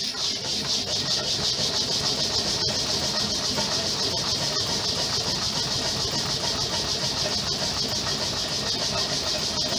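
Homemade Stirling engine generator running, fitted with PTFE seals and run without lubrication: an even, quick pulsing beat with a steady hiss over it.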